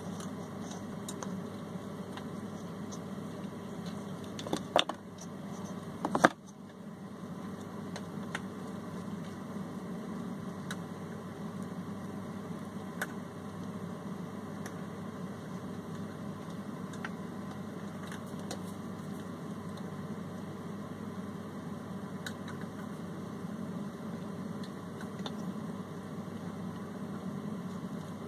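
Steady low background hum, with two sharp handling knocks about five and six seconds in and faint scattered clicks afterwards.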